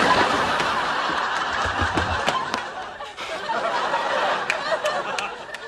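Studio audience laughing, easing briefly about halfway through and then building again.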